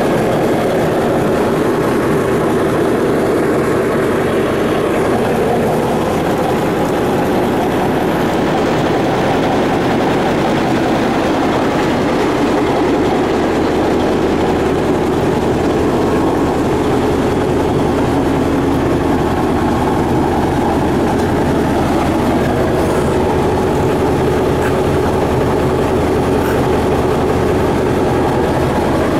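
Caterpillar D8K crawler dozer's six-cylinder turbocharged diesel engine idling steadily.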